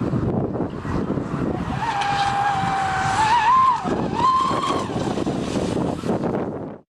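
Radio-controlled model boat's motor whining at speed over a rushing noise, its pitch stepping up briefly twice in the middle. The sound cuts off suddenly near the end.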